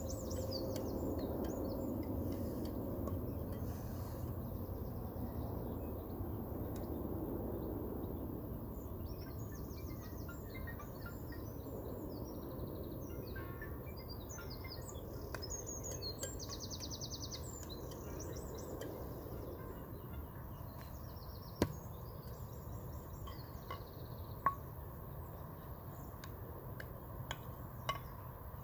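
Small birds chirping and singing over a steady low background noise, with three short, sharp knocks in the last few seconds.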